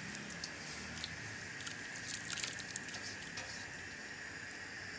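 Wet soaked grains and lentils sliding from a bowl into a pot of hot spiced water, with soft squishing and pattering over a steady hiss.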